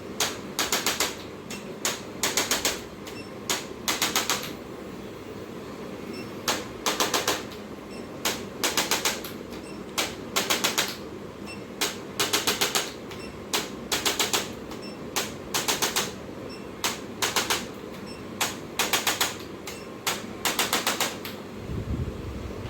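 Short bursts of rapid mechanical clicking, each under half a second and often coming in pairs, about one pair every two seconds, with a pause of about two seconds early on. A steady low hum runs underneath.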